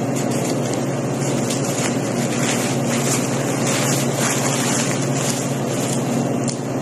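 Wall-mounted air conditioner running: a steady low hum with an even hiss over it.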